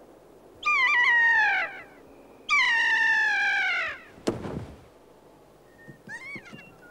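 Two long, drawn-out kea calls, each sliding down in pitch at the end, then a sharp knock about four seconds in and a few short chirping calls near the end.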